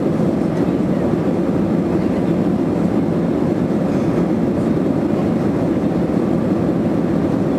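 Steady cabin noise inside a Boeing 767-300ER airliner in flight: an even, low roar of the engines and airflow.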